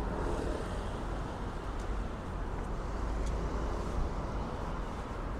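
City street traffic noise: a steady rumble of road vehicles.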